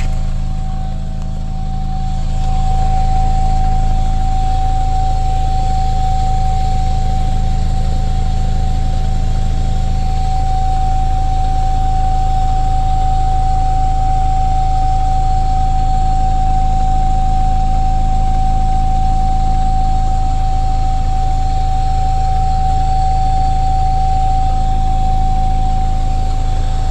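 Steady hissing noise from beneath a 2022 Mazda CX-60 plug-in hybrid, heard as one constant high tone that holds unchanged over a low steady hum; the owner suspects the fuel pump or something air-related.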